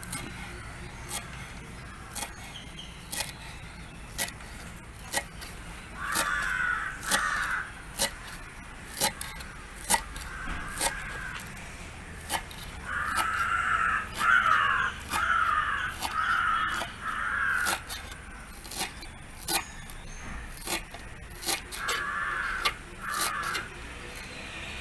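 Crows cawing in runs of two to five calls, over sharp knife taps on a cutting board from coriander being chopped.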